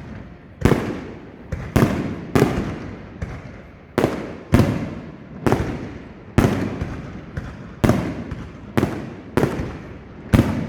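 Fireworks display: aerial shells bursting one after another, about fifteen sharp bangs at an uneven pace of one to two a second, each trailing off in a rumbling echo.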